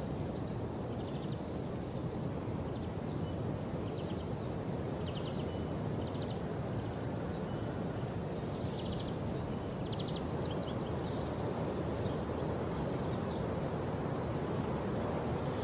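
Steady low rumbling outdoor noise heard from inside a vehicle, with short, high chirping bird trills repeating every second or so. No distinct crash or impact stands out.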